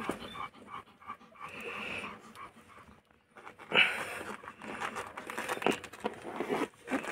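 Dog panting while a litter of newborn German shepherd puppies nurses, with irregular suckling and shuffling sounds from the puppies at the teats. The breaths and small noises come in uneven bursts, the loudest about four seconds in.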